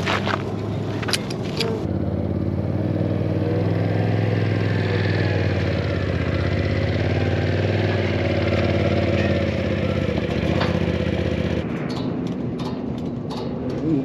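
A vehicle engine running steadily for most of the stretch, with scattered clicks and knocks at the start and near the end.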